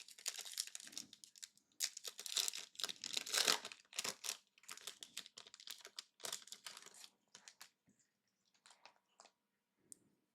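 Trading-card pack wrapper being torn open and crinkled, loudest a couple of seconds in, then fainter rustling that dies away to a few small clicks after about seven seconds.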